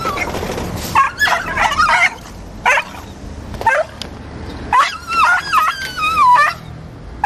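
A netted stray dog crying and yelping in distress: a series of short, high yelps, then a long wavering cry about five seconds in.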